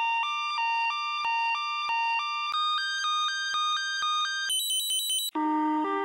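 Two-tone ambulance siren switching back and forth between two notes a few times a second, played sped up and raised in pitch. It jumps higher about two and a half seconds in and higher again near four and a half seconds. After a brief cut, a much lower-pitched version of the same two-note siren begins.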